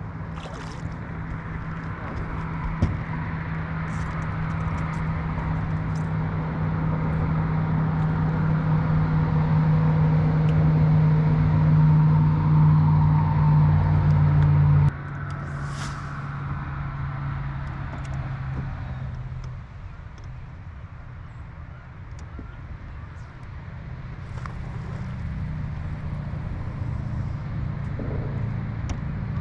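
A boat's outboard motor running under way, a steady engine note that grows louder, then drops off suddenly about halfway through and again a few seconds later before slowly building back, with rushing wind and water noise.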